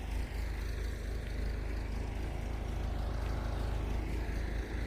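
An engine running steadily, a low rumble with an even noisy hiss above it.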